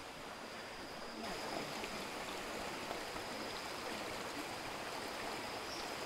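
Rushing water of a mountain stream: a steady, even hiss of flowing water that grows a little brighter about a second in, with a thin, steady high tone over it.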